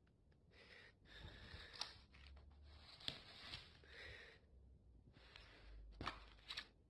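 Sheets of paper being handled, rustling faintly in several bursts with a few sharp crackles.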